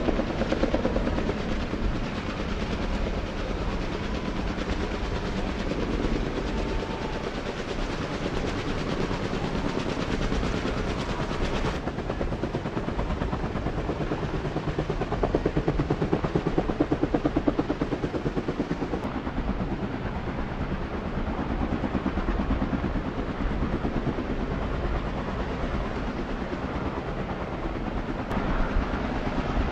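Helicopter flying low and hovering, its rotor blades beating in a fast, steady chop.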